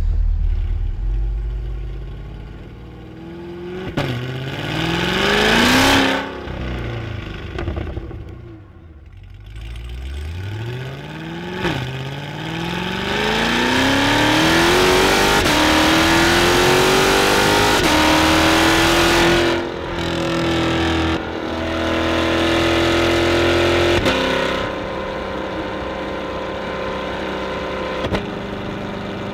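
C8 Corvette's 6.2-litre LT2 V8, breathing through Kooks long-tube headers and green cats, heard from inside the cabin under hard acceleration. The engine note climbs through the revs in two short pulls and one long one, each broken by a quick upshift. Near the end it eases off into a steadier cruise.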